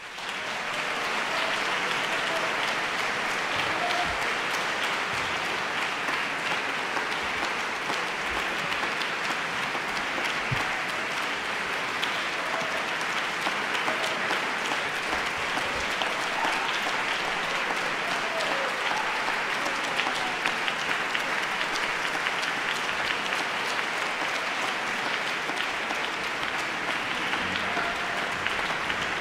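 Audience applauding, starting suddenly out of silence and then going on steadily.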